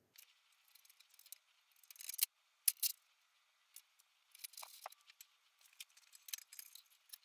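Faint, scattered metal clicks and clinks as a steel G-clamp is set over welded steel brackets on a steel plate and screwed down, with two short ringing pings of metal on metal about halfway through.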